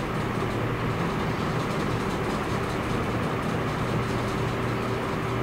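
Steady mechanical hum with a constant low drone and a held tone, with faint rustling of tissue paper as hands press the patch onto the kite.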